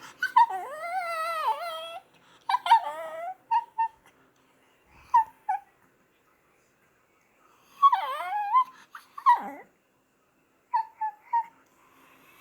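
Dog whining and yipping in a string of high, quavering calls: a long wavering whine at the start, then short yips and a drawn-out whine that dips and rises again about eight seconds in. It is the dog's hungry wake-up whining, begging to be fed.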